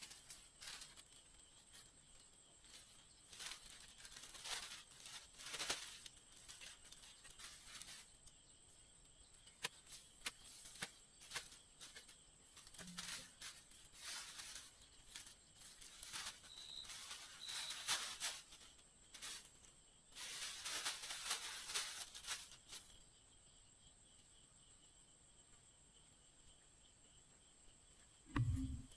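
Intermittent rustling and tearing noises with scattered sharp clicks, then a low thud at the very end.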